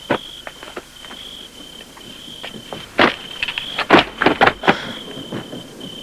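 Crickets trilling in a steady, high, broken pattern. Over them come scattered footsteps and rustling through brush, loudest in a cluster of bursts about halfway through.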